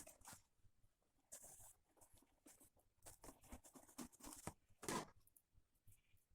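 Faint, irregular scraping, rustling and small clicks, with a louder scrape about five seconds in.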